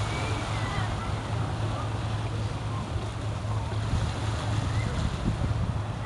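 Tour boat's engines running with a steady low drone, under a haze of wind and water noise.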